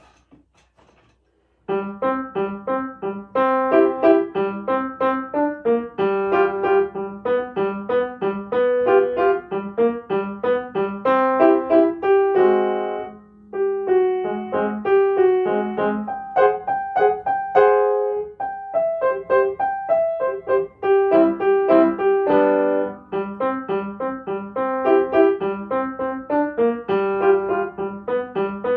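Kawai upright piano being played: a steady run of single notes and chords that starts about two seconds in, with a brief break about halfway through.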